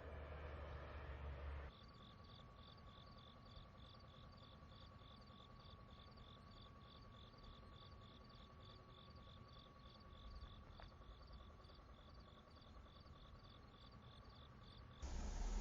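Crickets chirping in a steady rhythm, about three high chirps a second, over a faint steady tone. A low rumbling noise cuts off about two seconds in, and a louder rushing noise starts near the end.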